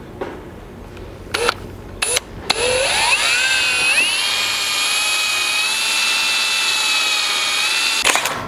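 Power drill with a 1/8-inch bit boring a pilot hole through metal, the first step of a series up to 7/16 inch for thread-cutting bolts. After a couple of light clicks, the motor starts about two and a half seconds in, its whine rising in pitch as it spins up. It then runs steadily while cutting and stops near the end.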